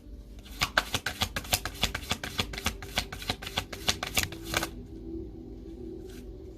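A deck of tarot cards being shuffled by hand: a quick run of card slaps and flicks, about six a second, lasting about four seconds before stopping.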